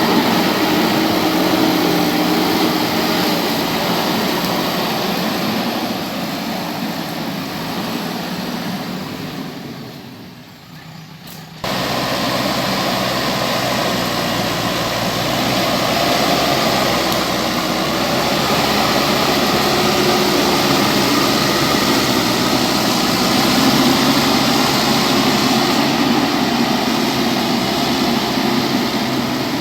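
JCB backhoe loader's diesel engine running steadily. The sound fades down about eight to ten seconds in and cuts back in abruptly a moment later.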